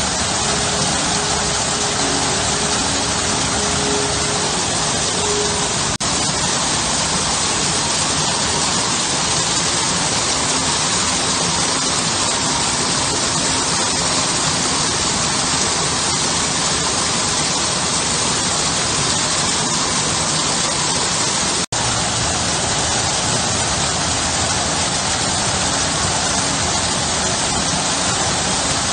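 A garden waterfall: water pouring steadily over rock into a pool, a constant even rush. About 22 seconds in the sound drops out for an instant, and more faintly about 6 seconds in.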